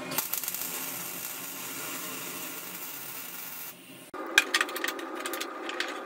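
Steady scraping of a hand tool on the cut end of a steel tube, then, after a brief break, a run of metal clicks and clanks as a steel tube is set and clamped in a chop saw's vise.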